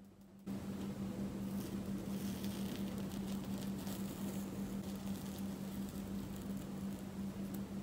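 A spoon breaking the thin baked crust of a soufflé and sinking into its soft, airy crumb: a faint squish and light crackle, over a steady low hum that starts about half a second in.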